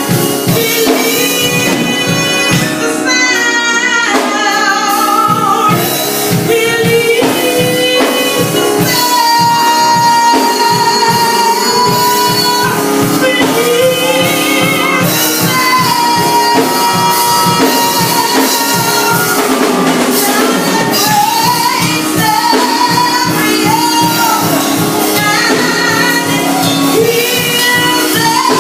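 Gospel worship music: a female voice singing a melody over a band with a steady beat and tambourine.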